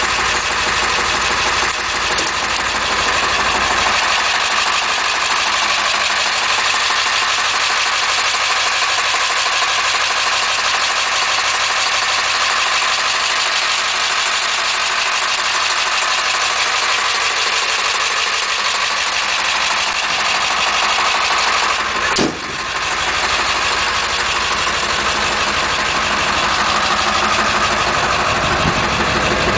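International T444E 7.3-litre V8 turbo diesel idling steadily. There is one short knock about two-thirds of the way through.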